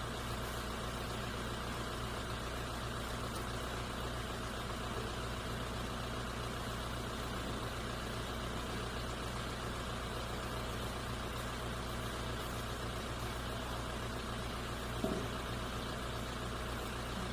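Steady low mechanical hum, even and unchanging, like a motor or engine running at idle, with a single short click about fifteen seconds in.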